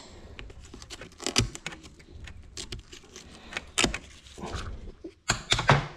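Irregular clicks, taps and scraping of a tool picking at the plastic power-switch housing of a Gallagher S100 energiser, working the rusted, corroded magnet loose.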